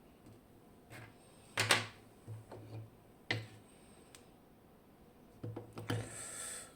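A few sharp clicks and knocks of a picked lock and its picking tools being handled, the loudest about a second and a half in, with a brief rustle near the end.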